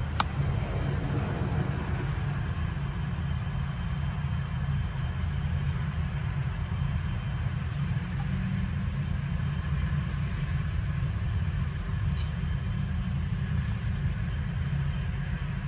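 A steady low rumble, like a machine or engine running, with a couple of light clicks, one just after the start and one about twelve seconds in.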